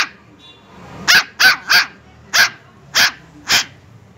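A puppy yapping in short, high barks: one right at the start, then a run of six more over the next two and a half seconds.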